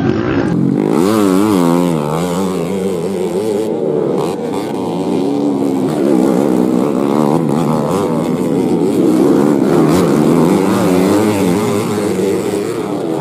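Small motorcycle engine revving as it is ridden, its pitch rising and falling again and again.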